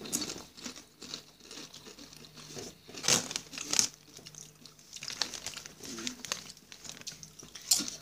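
Doritos chip bag crinkling as a hand rummages in it for chips, with two louder rustles a little after three seconds in and another near the end.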